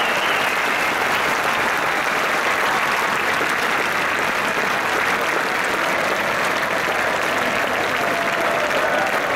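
A large crowd applauding, steady and dense clapping.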